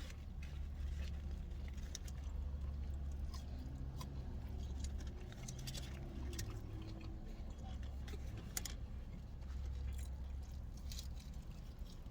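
Close-up chewing and wet mouth sounds of a man eating a burger, with scattered small clicks and smacks, over a steady low hum.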